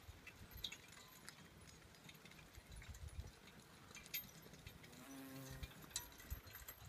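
Faint hoof falls and jingling harness of a two-horse draft team pulling a log-loader trailer across a field, with a brief pitched sound about five seconds in.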